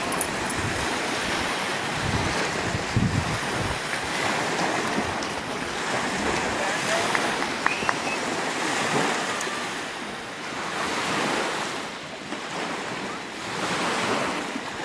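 Small lake waves washing onto a sandy shore, a steady rushing that swells and fades every few seconds, with wind buffeting the microphone.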